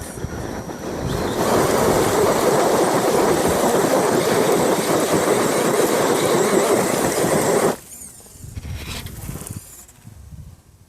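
A 4x4 RC truck with a 5.5T sensorless brushless motor driven fast. A loud, dense rushing noise from the motor and drivetrain builds over the first second or so and holds for about six seconds. It then cuts off suddenly, leaving quieter scattered rattling.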